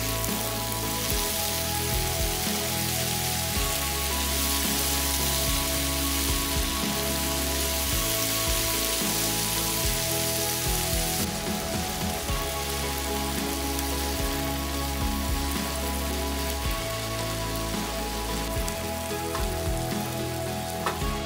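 Ground beef, onion and cherry tomatoes sizzling in a frying pan, a steady frying hiss, over soft background music.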